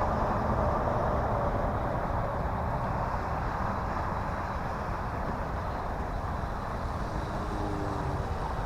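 E-flite T-28 Trojan RC plane's electric motor and propeller droning steadily in flight, dipping slightly in the middle as the plane moves about.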